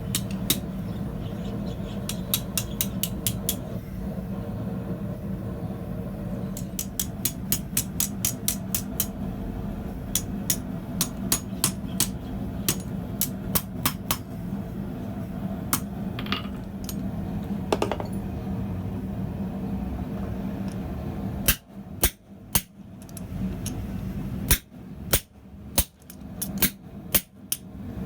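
Blacksmith's hammer striking hot steel on an anvil in runs of quick blows, about three or four a second, over a steady low hum. About three-quarters of the way through, the hum drops away, leaving a few separate blows.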